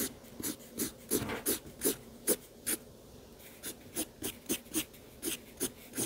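Felt-tip marker scratching on a paper drawing pad in short, quick strokes, about three a second, with a brief pause about halfway through.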